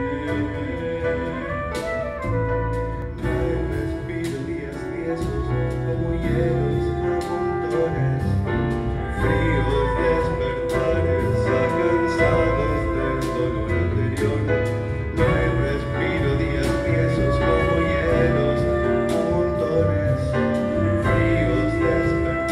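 A small live band plays an instrumental introduction, with sustained melody lines over a steady low bass and regular percussion strokes. The lineup is trumpet, piano, Venezuelan cuatro, double bass and percussion.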